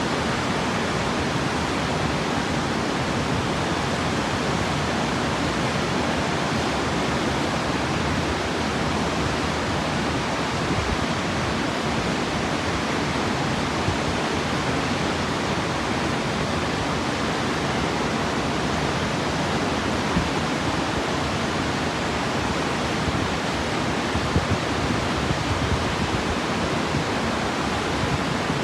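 Waterfall: water cascading over rock in a steady, loud rushing roar with no letting up.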